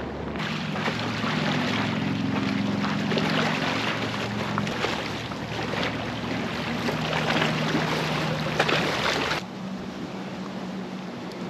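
An engine humming under a steady rushing noise like wind or water; about nine seconds in the rushing drops away abruptly, leaving a quieter hum.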